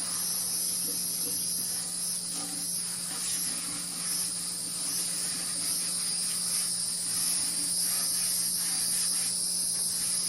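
Steady, high-pitched chorus of insects, a shrill drone that holds on without a break.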